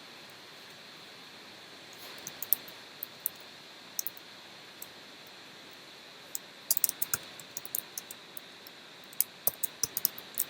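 Typing on a computer keyboard: irregular runs of sharp key clicks with pauses between them, over a steady faint hiss.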